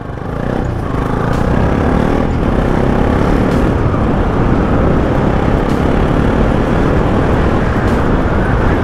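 Wind rushing over the microphone with the Bajaj Pulsar NS200's single-cylinder engine running beneath, as the motorcycle pulls away and rides at speed. The noise swells over about the first second, then holds steady.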